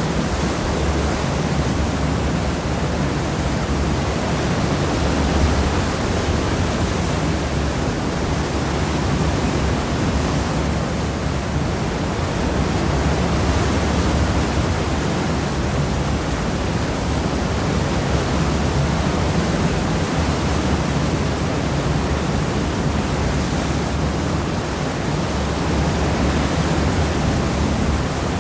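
Seawash churning behind the stern of a cross-channel ferry under way: a steady rushing wash of water with a strong low rumble beneath it.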